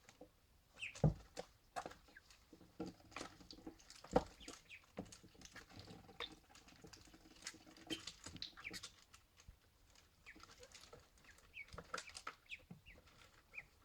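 Ducklings drinking and peeping: short high peeps over soft tapping and dabbling of bills in water, with quick sneezes that clear their nostrils after each drink. Two louder knocks come about one and four seconds in.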